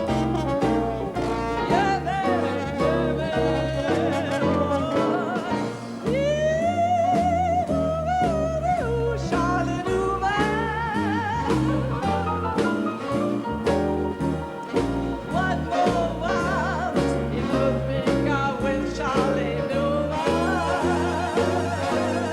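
Swing-style jazz with a walking bass stepping through notes under a melody line that wavers with a wide vibrato.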